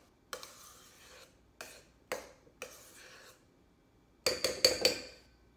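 A spatula scraping and rubbing around a stainless steel mixing bowl in several strokes as a thick cream cheese filling is folded, then a quick run of knocks against the bowl, about four seconds in, that leave it ringing.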